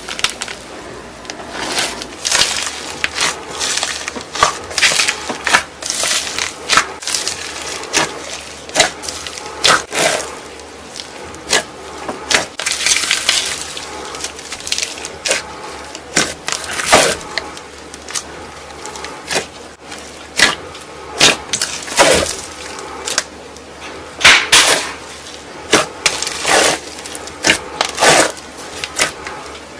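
Slime being squeezed and pressed by hand, giving irregular sharp crackles and pops.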